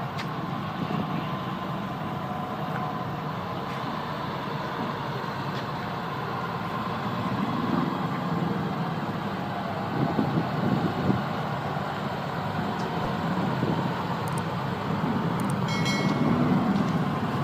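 Heavy truck running steadily with road noise, swelling in loudness a few times. There is a short high-pitched tone near the end.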